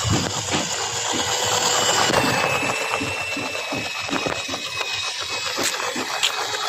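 Small battery-powered DC motor of a homemade cardboard toy car running with a steady whine, over an irregular clicking rattle; the pitch dips slightly about two seconds in.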